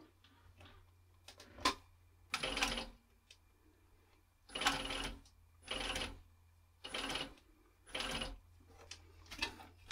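Industrial roller-foot sewing machine stitching leather in five short runs of a few stitches each, back stitching to lock the start of the seam. A single sharp click comes before the first run.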